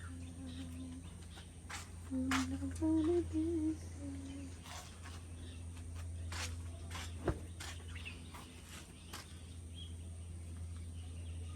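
A person humming a short tune of a few held notes during the first few seconds, over a steady low hum, with scattered brief chirps and a single sharp click about seven seconds in.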